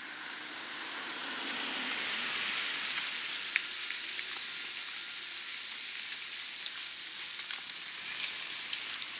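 Small car passing on a wet road: tyre hiss swells to its loudest about two seconds in, then eases into a steady wet hiss, with a few short clicks and one sharp click about three and a half seconds in.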